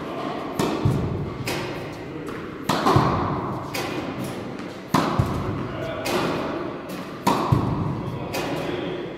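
Tennis racket striking balls in repeated serves: a sharp thump about every two seconds, four in all, each ringing out in the echo of a large indoor court hall.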